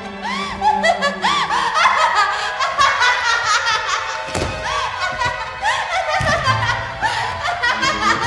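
Music layered with repeated high-pitched laughter in short rising-and-falling peals, with a dull thump about four and a half seconds in.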